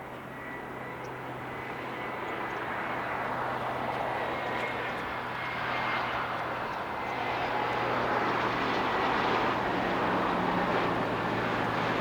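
Jet airliner engines, growing steadily louder as the plane approaches, with a faint high whine that drops slightly in pitch.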